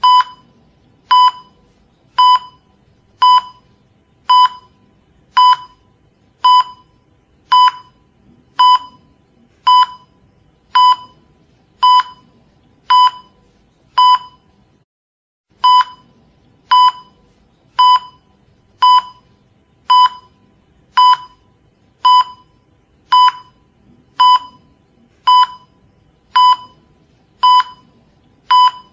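Hospital heart monitor beeping steadily, one short high beep about every second, with one slightly longer pause about halfway through.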